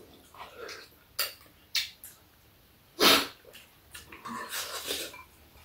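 Spoons and chopsticks clicking against bowls while people eat stew, with a few short clicks and a brief louder noise about three seconds in.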